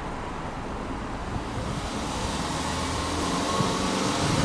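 The exhaust note of a Subaru Impreza hatchback 2.0i-S's 2.0-litre boxer (horizontally opposed) four, heard at the tailpipe. The engine revs up slowly in a stationary free-rev, rising in pitch and growing louder.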